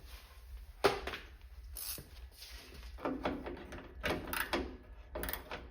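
Hand tools working a seized nut: a sharp metallic knock about a second in, then several short bursts of clicking and rasping as the tool is worked on the freshly heated nut.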